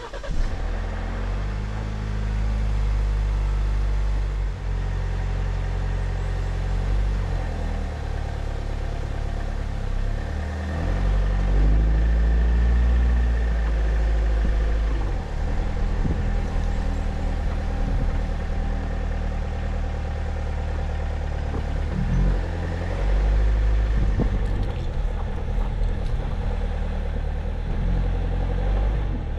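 Jeep Wrangler Rubicon driving, its engine running with a low hum that steps up and down in pitch as it speeds up and slows, over a steady wash of road noise. The sound comes in suddenly at the very start.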